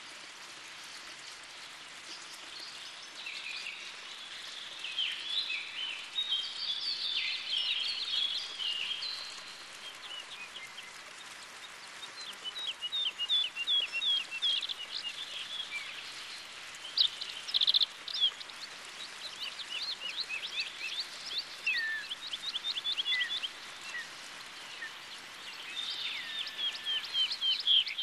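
Small songbirds singing outdoors: quick chirps, trills and runs of repeated high notes, with a few short falling whistles in the second half, over a steady faint background hiss.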